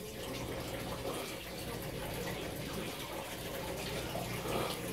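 Water running steadily in an aquaponics system, with a faint low hum underneath.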